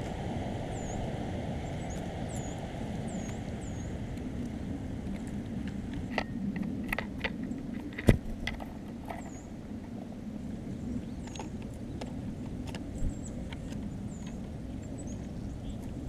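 Small songbirds giving thin, high, downslurred call notes, one every second or so, over a steady low background rumble. A cluster of sharp clicks and taps comes in the middle, the loudest a single crack about eight seconds in.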